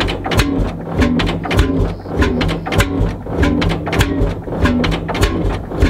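Background music with a steady beat, a sustained bass line and a short repeating melody.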